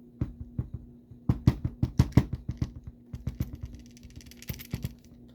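Irregular clicks and knocks of a screwdriver working at the screw of an American 1100 padlock during disassembly. They are thickest about a second in and thin out toward the end.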